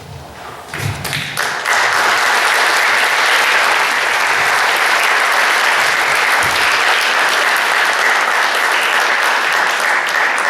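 Audience applauding: a few scattered claps that swell after about a second and a half into steady, full applause, which dies away at the end.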